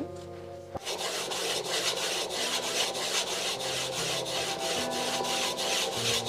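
A flat sharpening stone stroked quickly back and forth along a pair of short-track speed-skating blades clamped side by side in a sharpening jig: stone scraping on steel, about four strokes a second, starting about a second in. This is the grinding stage that takes steel off to sharpen the blades.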